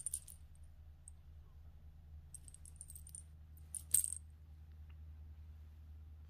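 Light metallic jingling of a cat's collar as the cats move: a short burst at the start, a few small clinks about two and a half to three seconds in, and the loudest jingle about four seconds in. A low steady hum runs underneath.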